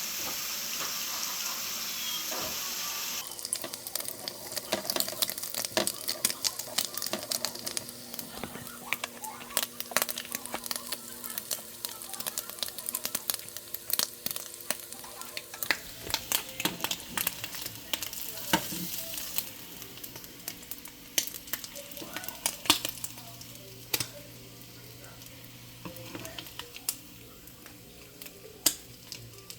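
Turkey bacon frying in a skillet: a steady hiss for the first few seconds, then sizzling with frequent scattered crackles and pops.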